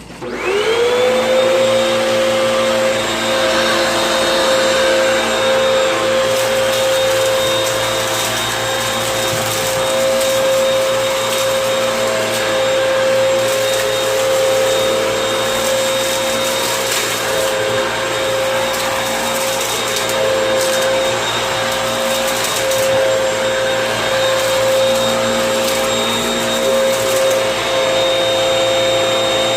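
Vacuum cleaner switched on, its motor whine rising to full speed within the first second, then running steadily.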